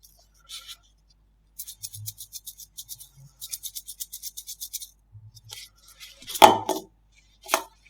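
Slime being squeezed and worked by hand, giving a fast run of small sharp clicking pops, about nine a second, then a louder squelch about six and a half seconds in and a shorter one near the end.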